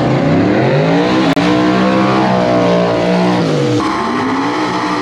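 Mustang drag car's engine revving up, holding high revs for a couple of seconds, then dropping back near the end to a lower steady pitch.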